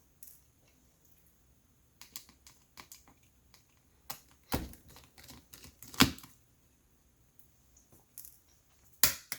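Scattered small clicks and taps from a screwdriver and tiny screws being handled on a laptop's body. There is a sharper tap about six seconds in and another near the end.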